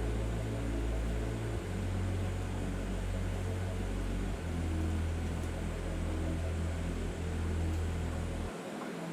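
Background music with a deep, sustained bass line that changes note every couple of seconds and drops out near the end, over a steady hiss.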